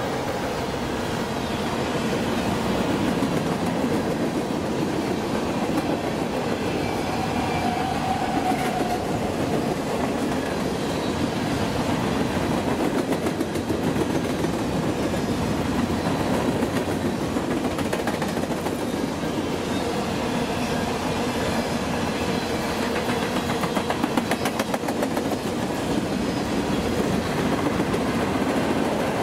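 A freight train's covered hopper cars rolling past close by: a steady rumble of steel wheels on the rail, with a clickety-clack as the wheel sets pass over rail joints.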